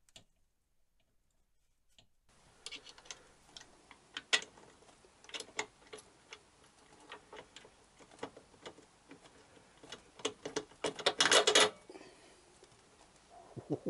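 After a couple of seconds of near silence, scattered metal clicks and taps of hands and tools fitting a chrome motorcycle silencer to its mounting bracket. A quick run of clicks comes about eleven seconds in and is the loudest part.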